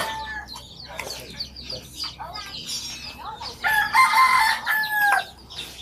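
A rooster crowing once, a long call about four seconds in, amid shorter chirps and clucks from chickens.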